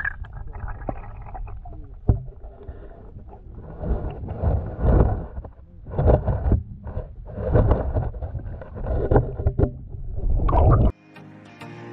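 Muffled, low rumbling water noise picked up by a GoPro Hero9 held underwater, swelling in irregular surges every second or so as the water moves around the camera. Music starts abruptly about a second before the end.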